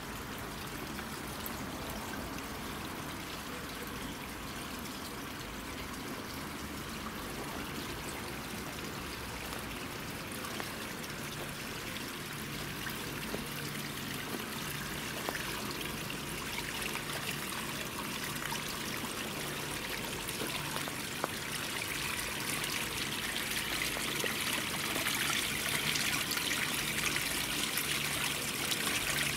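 Garden water feature: water trickling and splashing steadily down a small stepped cascade into a pebble-lined pool, getting louder over the last several seconds.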